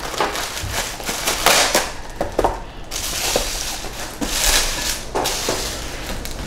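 Plastic cling wrap crinkling in several short bursts as it is torn from its box and pressed over a glass bowl.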